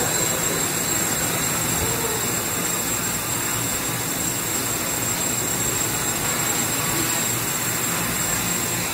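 Quadcopter's electric motors and 10-inch propellers running in a hover: a steady, even whir with a thin high whine held throughout.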